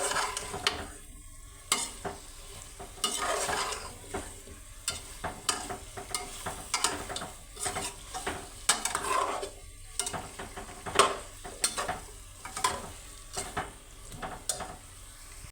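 Potatoes and cauliflower being stirred in a frying pan: a utensil repeatedly scrapes and clacks against the pan, several irregular strokes a second, over steady sizzling.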